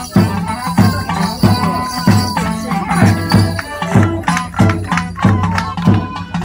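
Live Border Morris dance music: a folk band's tune over a steady bass-drum beat about one and a half times a second. Sharp wooden clacks of the dancers' sticks striking together join in, stronger in the second half.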